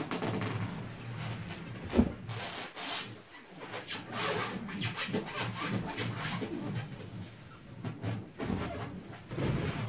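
Inflated latex balloons squeaking and rubbing against fur and each other as they are squeezed and sat on, in an irregular run of rubs and short squeaks. A single sharp knock about two seconds in.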